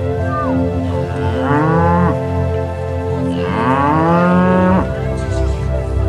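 Cattle mooing: two long moos, the second longer, about a second and a half and three and a half seconds in, over steady background music.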